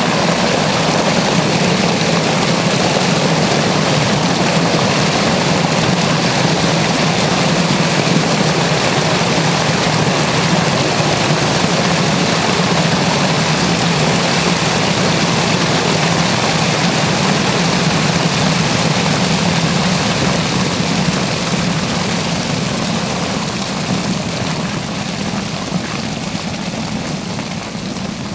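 Water rushing down a large central drain as a pool empties: a loud, steady roar with a low hum under it, easing off over the last few seconds as the drain runs nearly dry.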